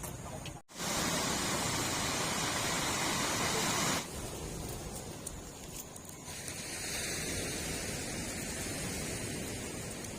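Wind rushing over the microphone and road noise from a motorcycle on the move. The noise breaks off for an instant under a second in, then changes abruptly at about four and six seconds, as if spliced from separate clips.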